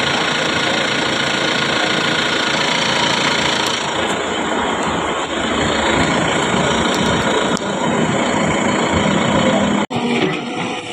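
Excavator running and working, a steady mechanical drone with a steadier low hum coming up in the last couple of seconds. It breaks off abruptly near the end.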